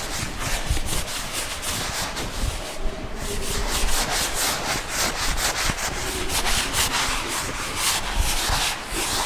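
A hand-held duster wiping chalk off a blackboard in a quick run of back-and-forth rubbing strokes.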